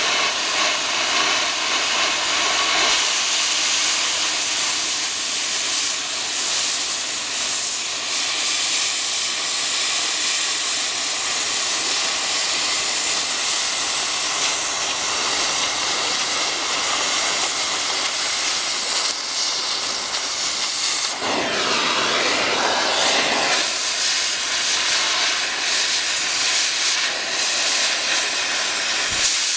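Oxy-fuel cutting torch hissing steadily as its jet burns through thick steel plate. The hiss grows stronger a few seconds in, and its tone wavers and dips briefly about two-thirds of the way through.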